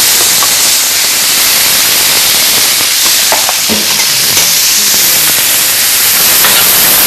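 Frying pan sizzling steadily: asparagus and mushrooms sautéing in hot olive oil.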